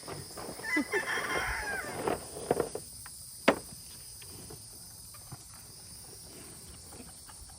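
A short squawking animal call lasting about a second and a half, then a few sharp knocks, over steady cricket chirring.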